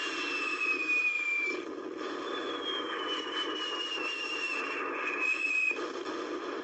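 Whistling rockets: two long whistles falling in pitch over a steady fizzing hiss, the second longer than the first.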